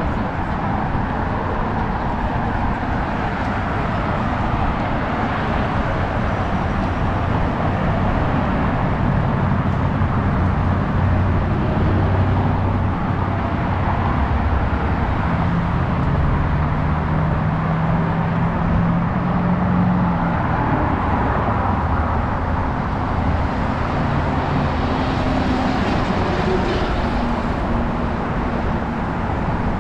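Steady running noise of a moving vehicle: a low engine hum with continuous road rumble.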